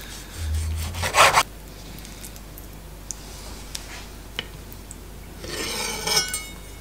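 Chef's knife drawing through raw salmon and scraping along a wooden cutting board: one stroke about a second in and another near the end, with faint light ticks between.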